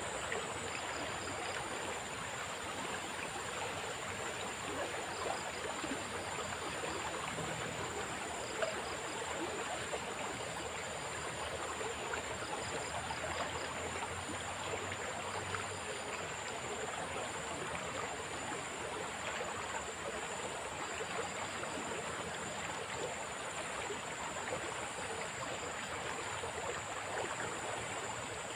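Swift river water rushing steadily, an even wash of noise with no letup.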